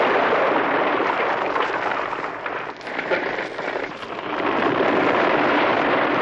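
Vintage avalanche sound effect: a continuous dense rushing noise that falls away briefly about halfway through, then rises again to full strength.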